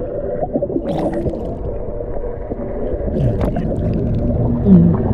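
Muffled underwater rumble and gurgling picked up by a submerged action camera, with a few clicks and a short loud low tone near the end.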